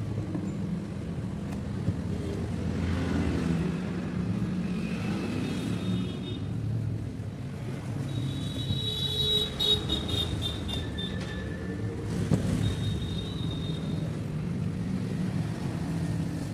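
Steady low rumble of road traffic, with a few short high-pitched tones, the clearest in the middle.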